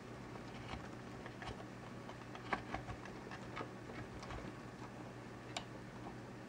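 Irregular light clicks and taps from leopard tortoise hatchlings clambering over driftwood and wood chips, their shells and claws knocking on the wood, the sharpest a few seconds in. A faint low hum runs underneath.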